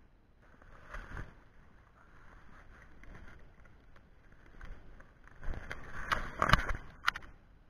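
Water splashing and rustling as a landing net is dipped into a shallow trout stream to net a fish. The splashing comes in a cluster of short bursts that are loudest from about five and a half to seven seconds in.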